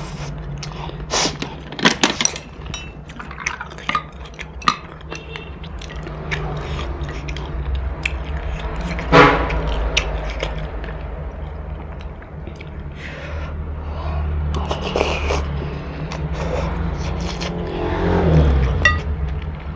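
Eating noodle soup: a metal spoon and chopsticks clicking and scraping against a ceramic bowl, and noodles being slurped and chewed, over a steady low hum. Sharp clicks come thickest in the first few seconds, with one louder sound about nine seconds in.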